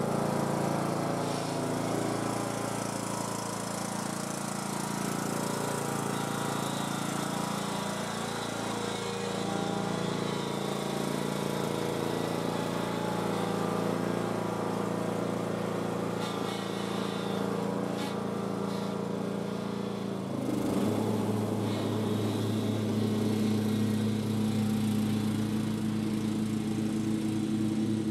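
Cub Cadet XT1 lawn tractor's engine running steadily as the tractor drives off under its own power on a test run after a transmission repair. About two-thirds of the way through, the engine note changes and gets louder.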